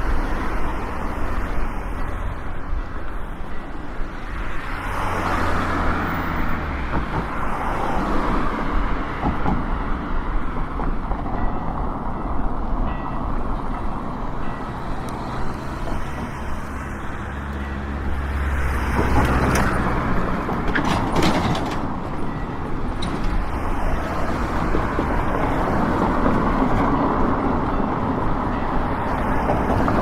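City street traffic: motor vehicles passing with a steady rumble of engines and tyres.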